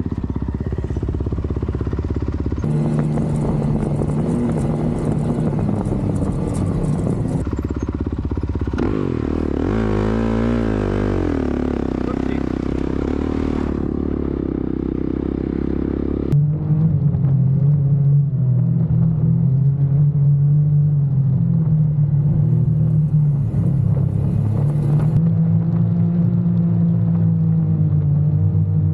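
Honda CRF450R four-stroke single-cylinder dirt bike engine running and revving while riding through sand, the revs rising and falling around ten seconds in. About halfway through it gives way to the steadier, deeper drone of a side-by-side UTV engine under way.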